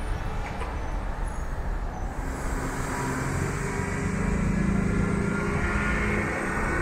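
Traffic noise: a steady low rumble, with a motor vehicle's engine hum swelling and fading as it passes about four to six seconds in.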